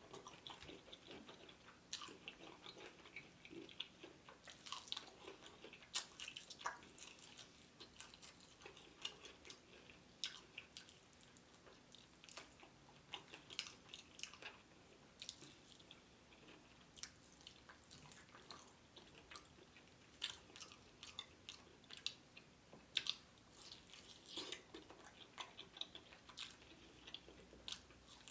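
Close-miked chewing of crispy fried chicken: irregular crunchy bites and wet mouth sounds, quiet between the bites.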